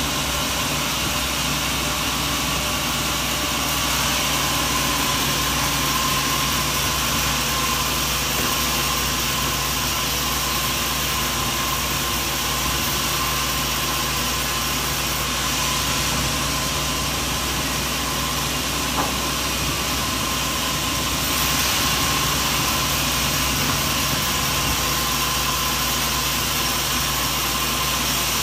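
Sawmill machinery running steadily, a constant engine-like drone with hiss and no distinct cuts or knocks.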